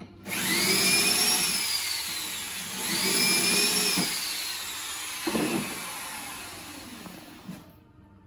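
Electric drill boring a dowel hole through the corner joint of a wooden window sash. It runs in two long stretches, each spinning up to a high whine and then slowing, and the second trails off near the end.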